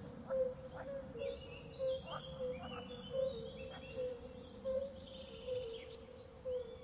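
Faint natural ambience of small birds chirping in short gliding notes, over a low steady tone that pulses about twice a second.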